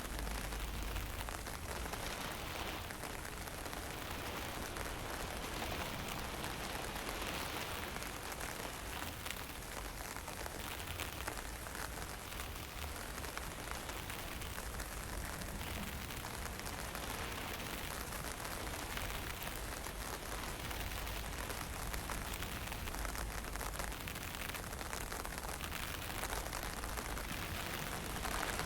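Steady hiss of fine drizzle and wind, with a low rumble of wind on the microphone swelling and easing now and then.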